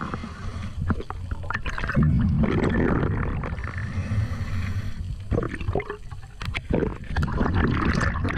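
Muffled underwater noise picked up through a camera housing: water rushing and gurgling past the camera as a freediver kicks with long fins, with a steady low rumble and scattered clicks and knocks.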